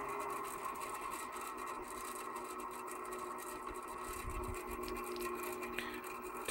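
Salvaged treadmill DC motor belt-driving a small wood lathe at its lowest speed setting, about 320 rpm: a steady running hum with faint steady whining tones.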